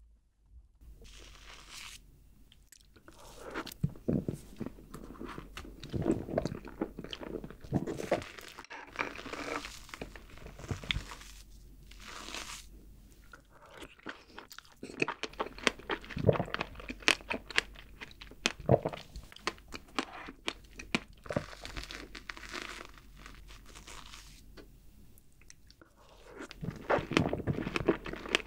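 Close-miked chewing of fresh strawberries and whipped cream. Crunching, wet bites come in irregular bursts, with short pauses between mouthfuls.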